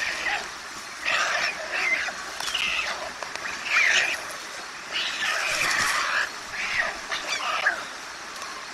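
White stork chicks begging for food: repeated hoarse calls in short bursts, one after another, from several chicks at once.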